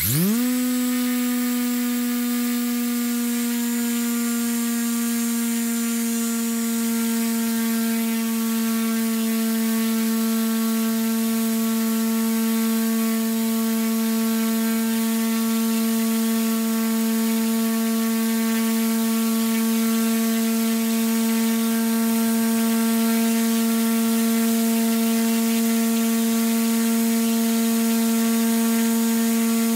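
Leopard LC250-30 4420kv brushless outrunner turning a 14x8 carbon propeller through a Reisenauer Micro 5:1 gearbox, spinning up within the first half second and then held at full power. It is a loud, steady hum with many overtones, its pitch barely changing.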